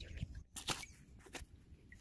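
Knife cutting through alligator hide, separating the skin from the meat in three short strokes.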